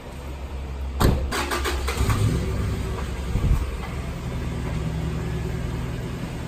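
A sharp knock about a second in, then a car engine starting and settling into a steady run.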